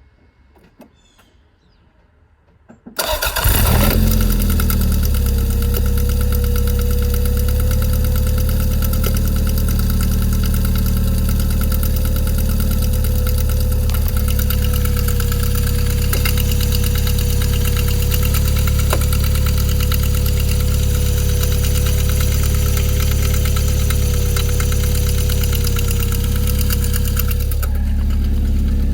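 Toyota 3S-GTE turbocharged four-cylinder engine starting up about three seconds in, then idling steadily with a fast, even clicking that the owner cannot place.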